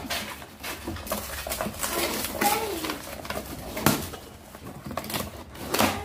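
Cardboard packaging being handled as a box is unpacked: flaps and inserts rustle, scrape and knock, with a few sharper knocks near the middle and end. A brief voice-like pitched sound rises and falls about two and a half seconds in.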